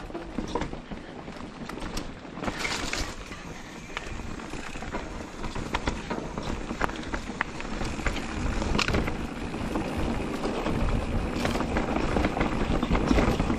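Mountain bike rolling fast down a dirt forest trail: tyres on soil and roots, with the chain and frame rattling and sharp knocks over bumps, under wind rushing over the microphone. The noise grows louder from about halfway through as speed builds.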